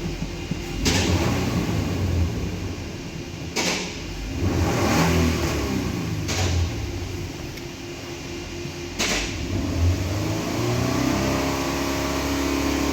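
Nissan Patrol Y62 engine being revved, its pitch rising and falling back a few times, with a few sharp clicks in between. No whistle is heard with the new fan clutch fitted: the worn fan clutch was the cause of the whistling under acceleration.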